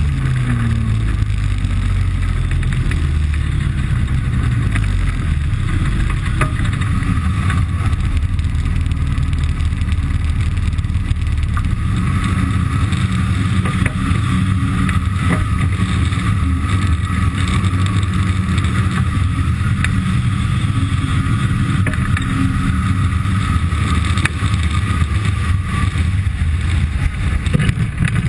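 Ultralight aircraft engine and propeller heard from on board in flight: a loud, steady drone, its pitch dropping right at the start and then holding steady.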